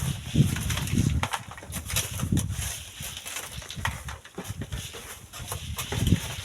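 Strong wind buffeting the microphone in uneven gusts of low rumble, with scattered crackles.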